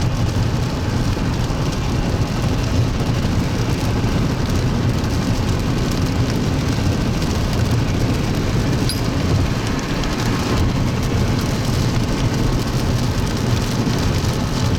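Steady rain, with fine drop ticks throughout, over the low rumble of a car running.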